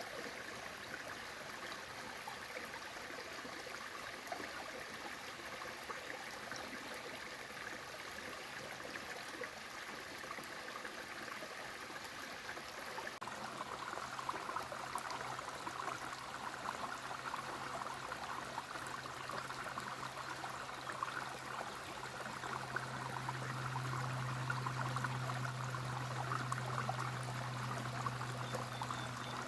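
Water of the Bayehon brook rushing and splashing in a steady wash. About halfway through the sound shifts to a brighter, closer splashing, with a steady low drone underneath that grows louder later on.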